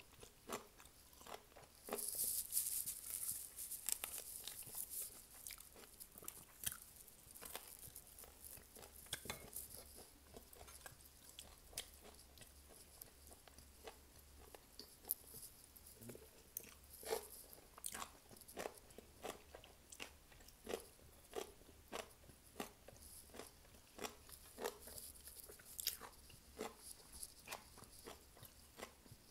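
A person chewing and crunching fried chicken wings and atchara, pickled green papaya relish: a scatter of small crunches and clicks, with a denser run of crisp crunching about two to five seconds in.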